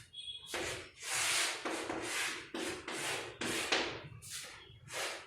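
Pen strokes scratching across a drawing surface, about ten separate strokes in a row, as a beam is sketched in isometric view.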